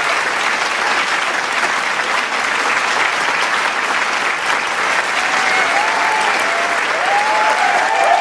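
Large crowd applauding, dense steady clapping, with scattered cheers and whoops from the crowd joining about five seconds in.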